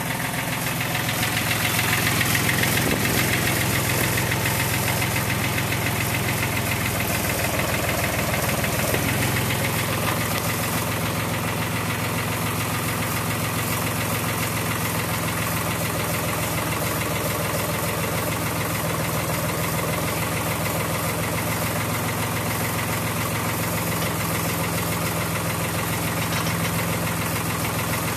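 JCB micro digger's diesel engine running steadily while the hydraulics curl the bucket to try its fit. The engine is briefly louder about two seconds in.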